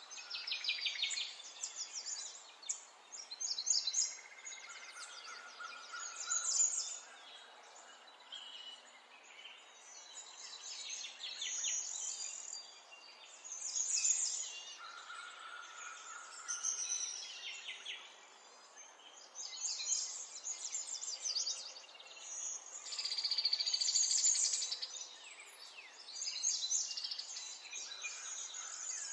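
Birds chirping and trilling in high-pitched bursts that come and go every few seconds, over a faint steady background hiss.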